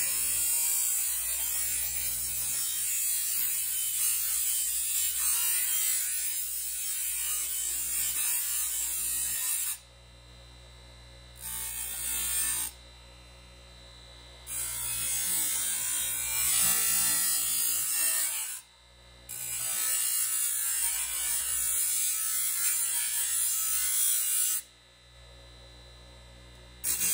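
Bench grinder grinding the sharp edges and burrs off a galvanized steel plate: a steady hiss of steel against the abrasive wheel over the grinder motor's hum. The hiss drops out four times, for between half a second and two seconds, as the plate is lifted off the wheel, leaving only the motor's hum.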